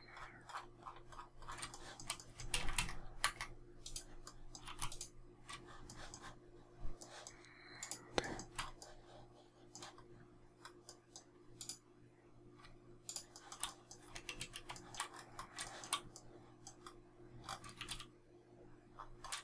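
Computer keyboard keys and mouse buttons clicking in irregular clusters, with a faint steady hum underneath.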